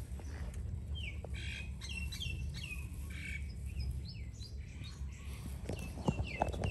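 A bird chirping repeatedly in short, high, falling chirps, several a second, over a low steady hum.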